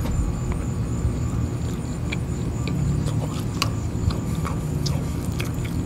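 A person chewing a mouthful of chicken, with irregular small mouth clicks, over a steady low rumble.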